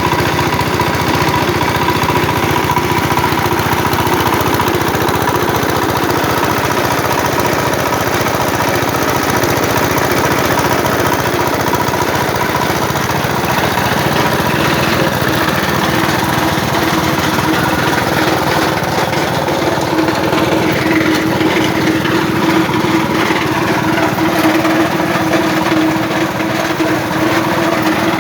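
Small single-cylinder engine running steadily at a constant speed, with a fast even low throb and a steady whine over it.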